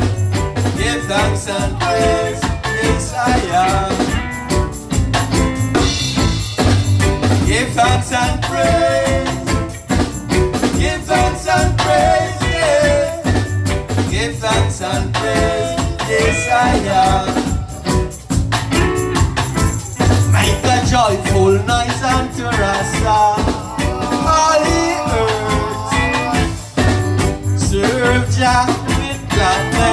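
Live reggae band playing, with a lead singer over acoustic guitar, keyboard, drum kit and hand drums.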